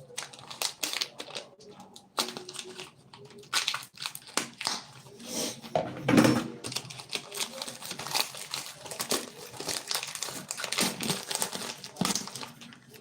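Packaging being handled and unwrapped: irregular crinkling and rustling with small knocks.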